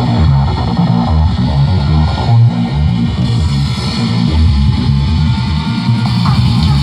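Loud rave music over a sound system, dominated by heavy pulsing bass with a guitar-like plucked line on top.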